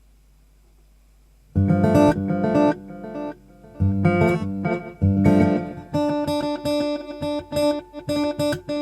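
Acoustic guitar played through an Elite Acoustics D4-8 acoustic amplifier with its delay effect turned up high: after a short pause, strummed chords ring out about a second and a half in, then near four and five seconds. From about six seconds an even run of quick echoing repeats of the same chord follows, about four a second.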